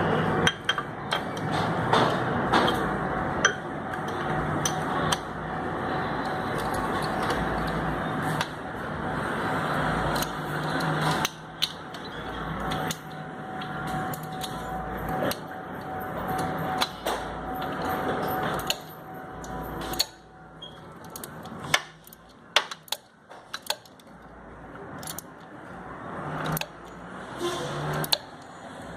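Hand tools clicking and knocking on metal over an uneven background noise that swells and drops every second or two.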